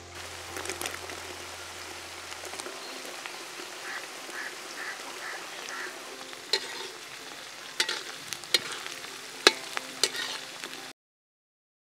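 Chopped onions and green chillies sizzling in hot oil in an aluminium kadai, with a steady frying hiss. In the second half the ladle knocks sharply against the pan several times while stirring.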